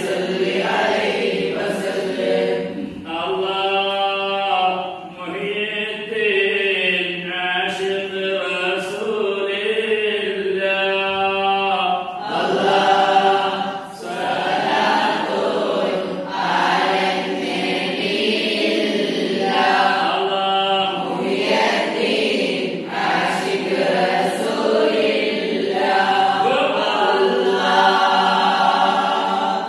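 A group of boys and men chanting a Sufi ratheeb dhikr together, unaccompanied, the daf frame drums not yet played.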